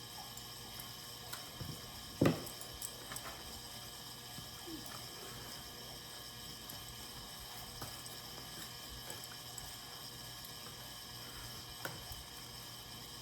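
Steady hum of a heating and cooling fan, with scattered small ticks and rustles of paper being wrapped around a light switch cover, and one sharper click about two seconds in.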